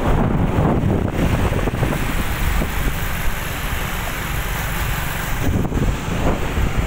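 Road traffic of cars and motorbikes going by, with wind buffeting the microphone in a loud, fluctuating rumble. The traffic noise eases in the middle and swells again near the end.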